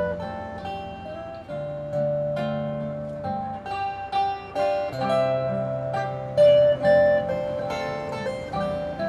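Acoustic guitars playing an instrumental piece, plucked and strummed chords under a melody of long held notes.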